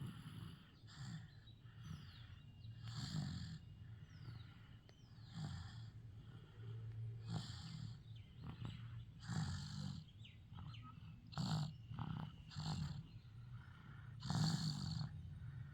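Snoring with rough, cough-like breaths, a noisy burst about every one to two seconds over a low rumble.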